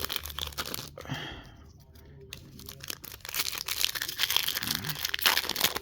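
Baseball card pack wrappers being torn open and crinkled in the hands: a run of crackly tearing and crumpling, with a lull about two seconds in before the crinkling picks up again.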